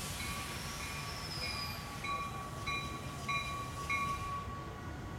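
Metra Highliner electric multiple-unit commuter train approaching with a low rumble. A bell rings steadily, about one and a half strokes a second, and stops about four seconds in.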